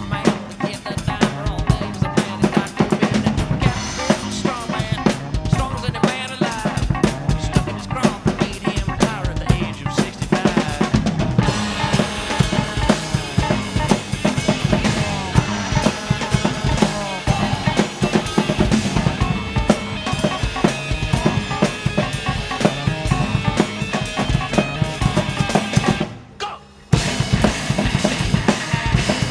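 Rock drum kit played hard in a fast, busy groove of kick drum, snare and cymbals over a rock song's band track. Near the end the sound cuts out for about a second, then comes back in.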